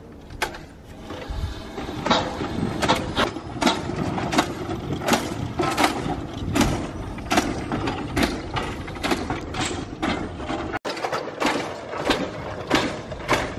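Steam engine puffing in a slow, even rhythm of about one exhaust beat every three-quarters of a second, over a steady mechanical hum. The sound drops out briefly near the end.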